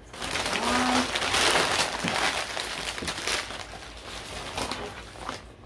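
White packing paper being crumpled and rustled by hand while unwrapping a package, loudest in the first couple of seconds and then settling into softer rustles.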